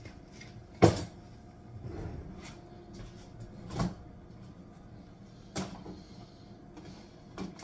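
Kitchen handling noises: four sharp knocks and clunks spread out, the loudest about a second in, as things are set down and doors are handled.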